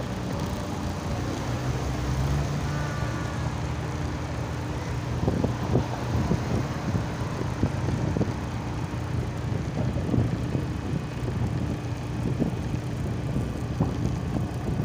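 Steady low rumble of road traffic with a constant hum. From about five seconds in, irregular short knocks join it.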